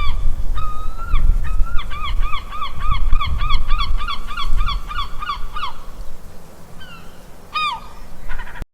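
Goose honking: a few drawn-out honks, then a fast series of short repeated honks at about two to three a second, and one more honk near the end, over a steady low rumble.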